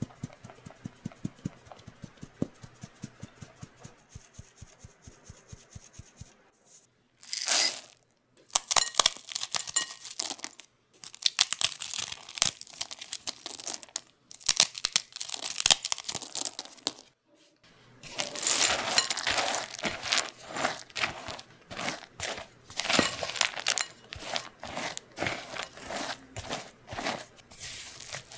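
A flour sieve tapped steadily, about four times a second, as flour is sifted into a glass bowl. After about seven seconds, chocolate chips and pretzel pieces rattle into the bowl in several loud bursts. From about eighteen seconds a spatula works them into crumbly cookie dough, crunching and scraping.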